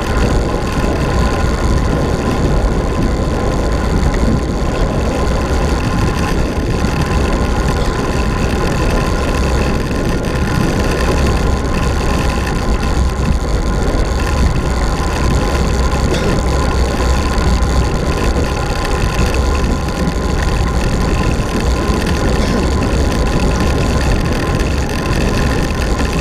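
Wind rushing over the microphone of a handlebar-mounted camera on a fast road-bike descent: a loud, steady rumble that does not let up.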